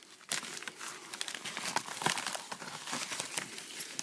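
Plastic packaging crinkling and rustling as a new replacement laptop screen is unwrapped by hand, a dense run of irregular crackles starting shortly after the start.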